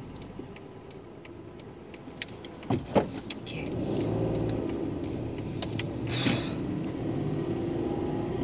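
Car engine and road noise heard from inside the cabin as the car pulls away. There are a couple of sharp clicks about three seconds in, and then the engine drone grows louder and stays steady.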